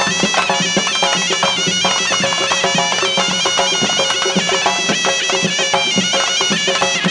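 Tunisian mezoued bagpipe playing a quick, ornamented melody over a held drone, with hand drums beating a steady rhythm; an instrumental passage of mezoued folk music.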